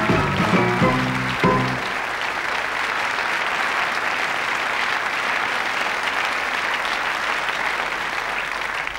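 Sitcom closing music ending on a held chord about a second and a half in, followed by a studio audience applauding.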